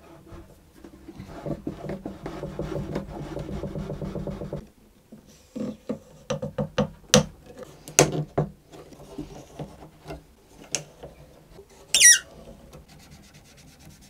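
Cello fingerboard rubbed back and forth against the glued neck, a steady wood-on-wood rubbing for the first few seconds. After that comes a run of sharp wooden clicks and knocks as wooden clamps are fitted and tightened over the fingerboard, with one short falling squeak near the end.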